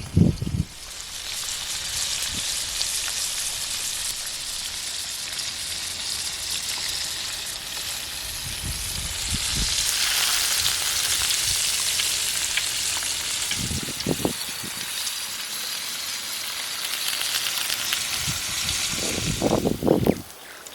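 Chicken frying in hot oil in a pan: a steady sizzle that swells midway and stops abruptly near the end, with a few dull low knocks.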